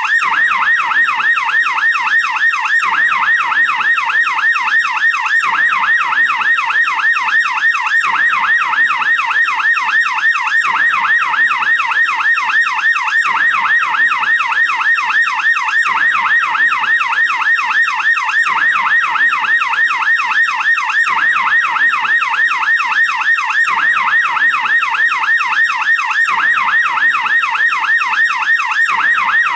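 American police car siren in yelp mode: a rapid rising-and-falling wail repeating several times a second, without a break.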